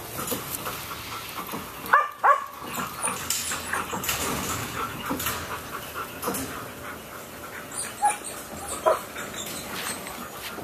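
Five-week-old puppies giving short, high yelps and whimpers while playing over a tug toy, with two loud ones about two seconds in and two more near the end, over continual scuffling.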